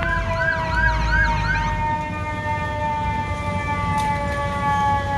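Emergency vehicle sirens: a fast yelp sweeping up and down two to three times a second, which stops about two seconds in, over a long steady siren tone that slowly falls in pitch.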